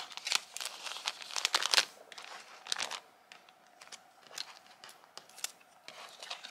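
Sheets of nail water decals being handled and shuffled: a dense run of rustling and crackling in the first three seconds, then only a few scattered rustles.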